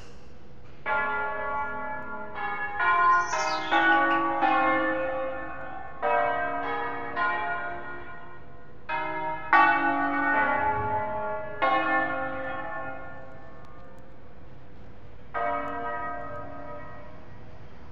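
The seven-bell ring of Cremona Cathedral, tuned in A-flat major, rung in concert: the bells sound one after another in a quick melodic run, each note ringing on under the next. After a short pause near the end comes one more stroke. The ringing marks the start of a solemn celebration.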